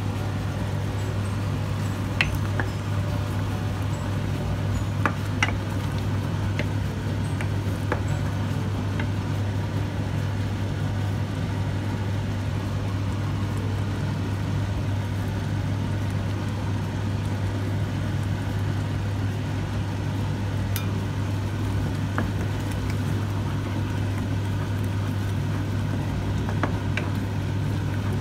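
A wooden spatula stirs thick tomato masala in a non-stick kadai, tapping lightly against the pan a handful of times. Under the taps runs a steady low hum with a noisy haze above it.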